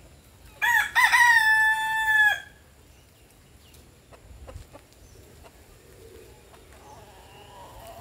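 A rooster crows once, starting about half a second in and lasting nearly two seconds: two short rising notes, then a long held note. A few faint clicks and some soft chirping follow.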